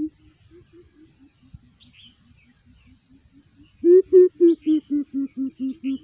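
Greater coucal hooting: a faint, distant series of deep hoots, then about four seconds in a loud series of deep hoots close by, about four a second. Small birds chirp faintly between them.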